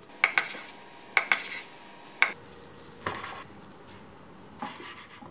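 Kimbap rolls being sliced and handled on a wooden cutting board: about seven uneven short taps and knocks of a knife and plastic-gloved hands against the board.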